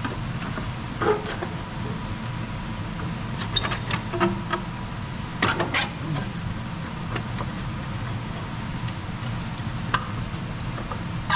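Scattered metallic clinks and knocks of tools and parts as a turbo is worked loose from a Duramax diesel engine, bunched most thickly in the middle, over a steady low hum.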